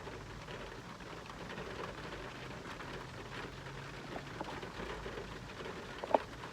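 Pouring rain falling steadily, with scattered drops ticking, and a single sharp click about six seconds in.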